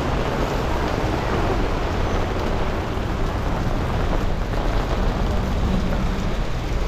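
Steady rush of wind and road noise from a motorcycle ride in the rain, with rain falling.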